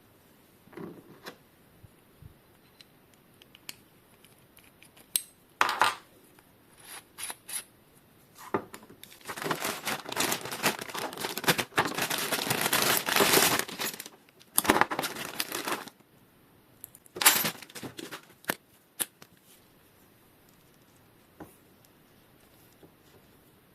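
Packaging being handled and torn open: irregular rustling, crinkling and tearing with scattered clicks and knocks, busiest in the middle stretch. No motor is running.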